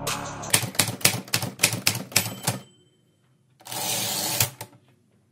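Typewriter key-strike sound effect: about two seconds of rapid, uneven clacks, then a pause, then about a second of hiss ending in a click.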